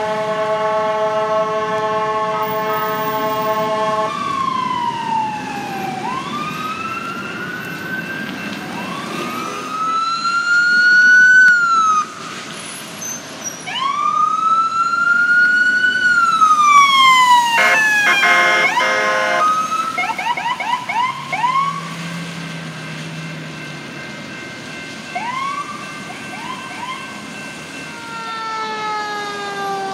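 Emergency vehicle sirens as an ambulance and fire trucks respond: a steady blaring tone for about four seconds, then electronic sirens wailing up and down. A short harsh burst comes around eighteen seconds in, quick yelping chirps follow, and a slow falling wail comes near the end.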